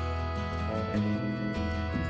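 Instrumental background music, with held notes that change every half second or so.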